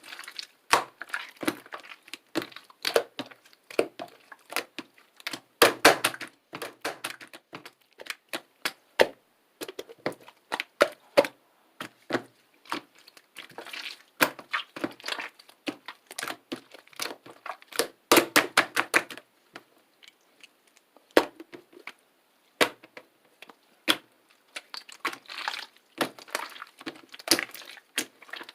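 Clear bubble-filled slime being squeezed, poked and stretched by hand, giving clusters of sharp wet clicks and pops as trapped air bubbles burst, with short pauses between handfuls.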